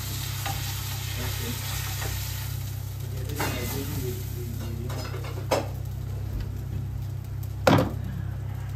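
Steak sizzling in a frying pan, the sizzle dying down after the first couple of seconds as the pan is moved, over a steady low hum. A few light knocks follow, then a loud thump near the end as the steak is set down on a wooden cutting board.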